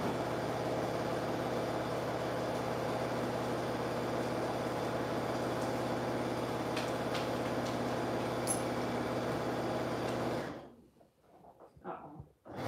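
Electric sewing machine running steadily at speed, stitching a seam around the edge of the fabric, then stopping abruptly about ten seconds in.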